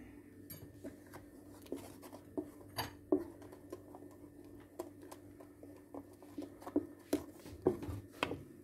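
Wooden spoon stirring a thick, lumpy soap mixture in a stainless steel pot, knocking and scraping against the pot's sides in irregular soft taps, over a faint steady hum.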